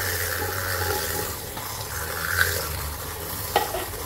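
Handheld battery milk frother whirring as it whisks a liquid egg-and-sugar mixture in a steel bowl while canned milk is poured in, a steady churning, watery sound over a low motor hum. A single sharp tap about three and a half seconds in.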